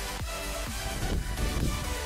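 Background electronic dance music with synth chords and a steady kick drum, about two beats a second.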